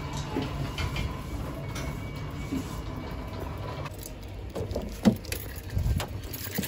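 A steady low hum with a faint high whine, then a car door's handle clicks, its latch releases and the door is pulled open, with a few light knocks and rustles.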